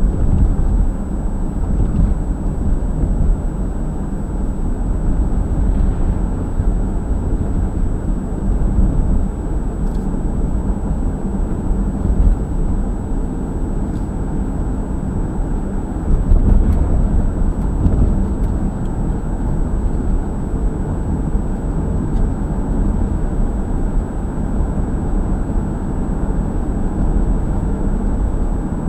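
2011 Acura MDX running: a steady low rumble with a faint, steady high whine above it.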